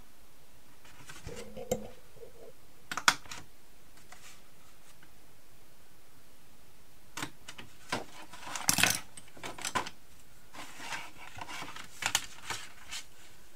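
Card stock being handled and folded: scattered sharp clicks and taps, with a short burst of crackly rustling about two-thirds of the way through.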